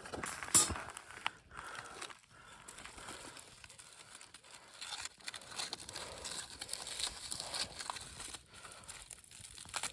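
Crinkling and rustling as the roasted sweet potatoes are taken out of the wood fire, with scattered crackles and one sharp knock about half a second in.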